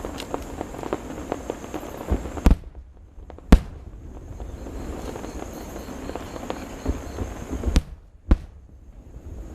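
Aerial fireworks bursting: a dense crackle of small pops, broken by four sharp, loud bangs, the loudest about three and a half seconds in.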